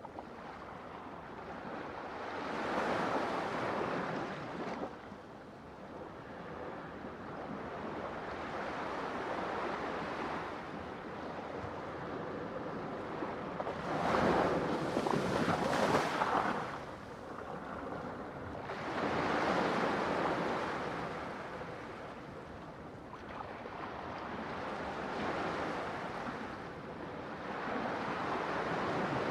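Ocean waves breaking on a shore: a steady rush of surf that swells and recedes every few seconds, with the biggest wave crashing about halfway through.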